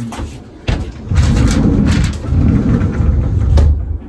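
A large wooden TV-rack panel being handled and shifted, giving a loud low rumble with a few light knocks that swells about a second in and dies away near the end.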